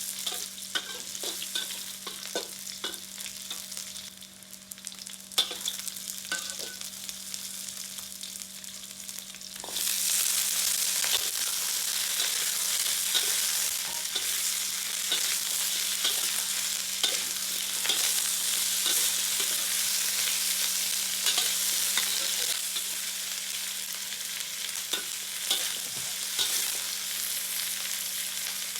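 Food frying in hot oil in a pan, with the clicks and scrapes of a utensil stirring it. The sizzle turns suddenly much louder about a third of the way in and stays loud.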